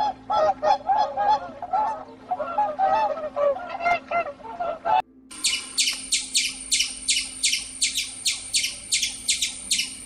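Waterfowl honking in a quick run of repeated calls, breaking off about five seconds in. Then a gray squirrel gives sharp, high chirps, about three a second, in a steady run.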